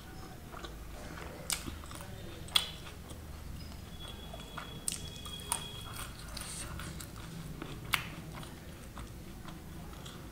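Close-miked chewing with soft mouth sounds and a handful of sharp, wet lip smacks and clicks. The loudest come about two and a half seconds and eight seconds in.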